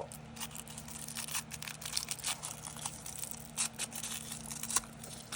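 Toy packaging crinkling and crackling in irregular bursts as it is handled and pulled at to get it open.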